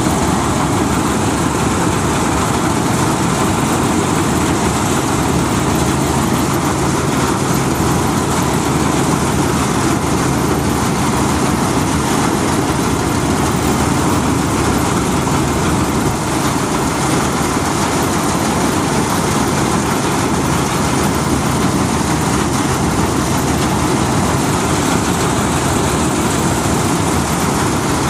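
Belt-driven stationary threshing machine running steadily as straw is fed into it. The machine makes a constant, loud mechanical noise that never lets up.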